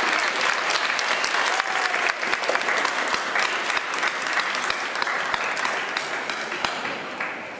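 Audience applauding: dense clapping from many hands that thins and fades near the end.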